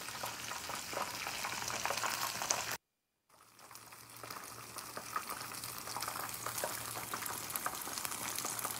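Breaded chicken strips deep-frying in hot oil: a dense, crackling sizzle. It breaks off for half a second about three seconds in, then comes back a little quieter and builds up again.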